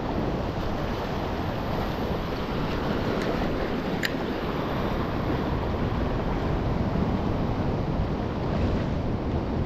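Steady wash of sea waves against a rocky shore, with wind rumbling on the microphone. A single brief click about four seconds in.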